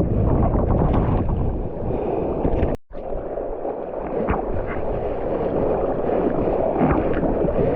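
Surf water sloshing and splashing around a GoPro camera, with wind on the microphone. The sound cuts out briefly about three seconds in.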